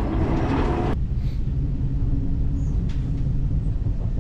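Steady low rumble of a moving vehicle heard from inside it. About a second in, the higher sounds cut off abruptly and only the deep rumble continues.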